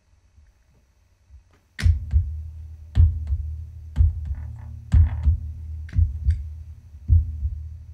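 The Apprehension Engine, a homemade horror-music box instrument with amplified strings and metal rods, played through effects. Near silence for a moment, then a deep, steady pulse of about one beat a second begins, each beat a quick double thud. Scratchy metallic scrapes are laid over it.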